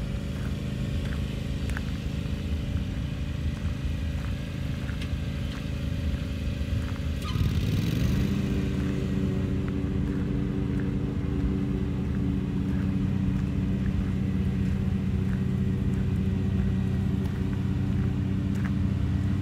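A steady low engine drone. About seven seconds in its pitch bends and it settles on a new steady note, slightly louder.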